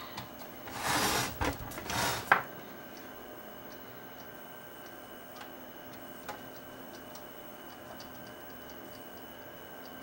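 Hands handling a Mitsubishi CRT television set: rubbing and knocking against its plastic cabinet for a second or so, ending in a sharp click about two seconds in. After that come faint scattered ticks over a faint steady high tone.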